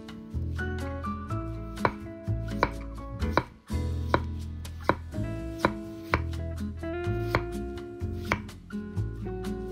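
Chef's knife slicing peeled, boiled potatoes into rounds, each cut ending in a sharp tap of the blade on a wooden cutting board, about one cut every three-quarters of a second. Background music plays underneath.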